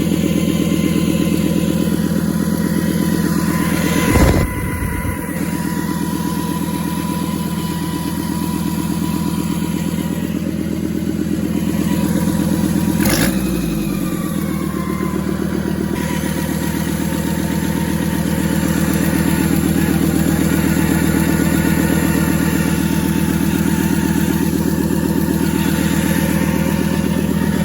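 Toyota 1PZ five-cylinder diesel running steadily at idle with a failed turbo that is pushing oil into the exhaust and boost pipe. Two brief thumps cut through it, about four and thirteen seconds in.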